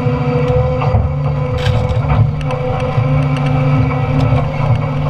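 Doosan Solar 255 LC-V excavator's diesel engine running steadily under hydraulic load while its hydraulic shear crushes and splits scrap timber: sharp cracks and snaps of breaking wood over the engine drone, a cluster about one and a half to two seconds in and more scattered after.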